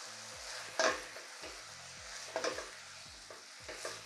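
Cubes of chicken breast frying in olive oil with a steady sizzle. A wooden spatula stirs them and scrapes the pan three times.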